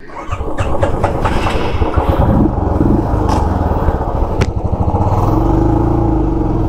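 Motorcycle engine running at idle with a low, even pulse, with a few sharp clicks in the first half; the engine note steadies and holds a little higher from about five seconds in.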